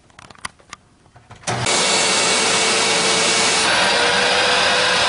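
A 12-amp Hoover WindTunnel upright vacuum cleaner switched on about a second and a half in after a few faint clicks. Its motor then runs loud and steady with a rushing whine, the tone shifting slightly about two seconds later, during a suction (water-lift) test.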